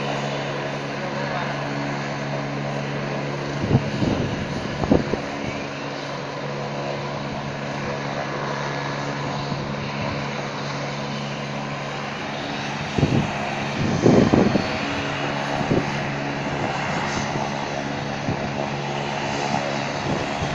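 Helicopter on a helipad running on the ground, a steady drone with an even hum. A few brief louder bumps come through, twice in the first five seconds and again just past the middle.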